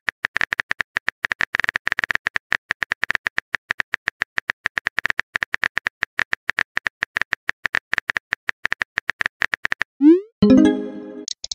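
Rapid phone-keyboard typing clicks, about eight to ten a second, as a chat message is typed. Near the end comes a short rising whoosh as the message is sent, followed by a brief chat chime.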